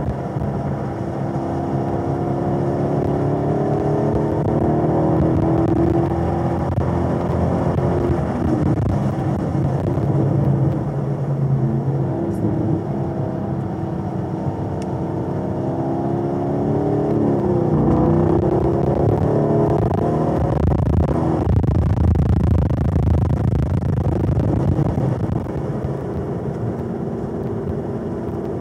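Chevrolet Camaro SS 1LE's 6.2-litre LT1 V8, heard from inside the cabin, pulling at around 3,500–4,000 rpm on part throttle through a series of corners. Its pitch drops and climbs again a little past halfway, then settles lower toward the end.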